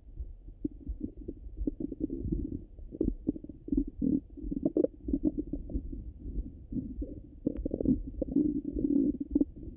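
Bowel sounds of a full stomach heard through a Littmann stethoscope: irregular low gurgles and clicks, with louder gurgling clusters about four to five seconds in and again near the end.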